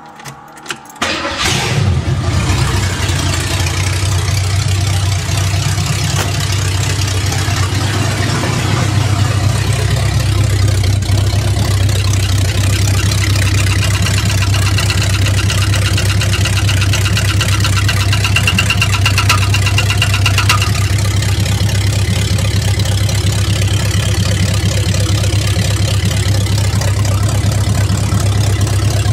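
A 1968 Ford Mustang's 302 V8 cranks briefly, catches about a second and a half in and settles into a steady run. Through the drone comes the grinding or unbalanced noise the owner suspects is in the C4 automatic transmission's torque converter, with a rougher, higher layer for several seconds mid-way.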